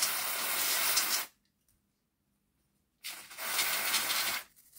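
Aerosol can of WD-40 contact cleaner spraying through its straw nozzle in two hissing bursts, the first at the start and the second about three seconds in, washing fluff and gunk off small gear parts from a model locomotive.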